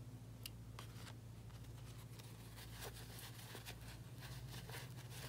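Small embroidery scissors snipping a sewing thread, a sharp click about half a second in, followed from about two seconds in by soft, faint rustling of a cotton fabric pocket being turned inside out by hand, over a steady low hum.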